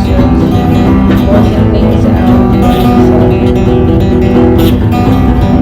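Music played on acoustic guitar, plucked and strummed, running steadily.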